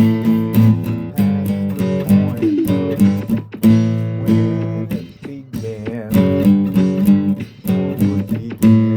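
Acoustic guitar music: strummed chords in a steady rhythm.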